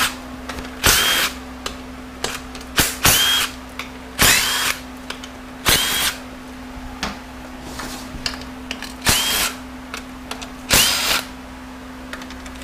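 Power drill/driver spinning out 10 mm transmission pan bolts on a 68RFE automatic transmission, about eight short bursts each starting with a quick rising whine, over a steady low hum.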